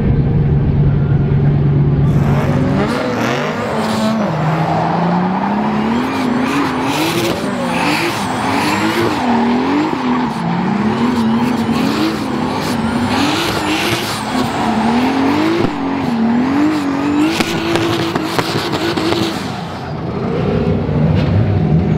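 Turbocharged BMW drift car's engine revving up and down again and again under throttle while its rear tyres spin and screech through a drift, leaving heavy tyre smoke. It starts about two seconds in, after a steady low engine drone, and near the end the revs drop away.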